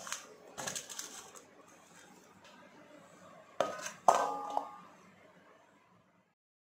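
Dough knocked and pressed against a stainless steel bowl in the first second and a half, then a steel plate set down over the steel bowl: two sharp metallic clinks about half a second apart, the second louder, ringing briefly as they fade.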